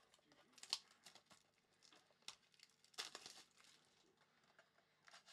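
Faint rustling and sliding of a stack of baseball trading cards being flipped through by hand, with a few soft crinkles, the loudest cluster about three seconds in.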